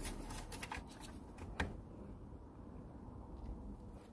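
Light handling noise as the engine oil dipstick is pulled and put back: a few faint clicks and rustles, with one sharper click about one and a half seconds in.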